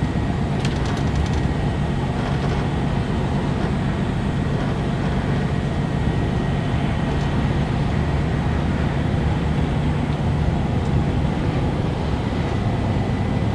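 Steady running noise inside the cab of a DAF XG+ truck cruising on the motorway: a low engine drone mixed with tyre and road noise.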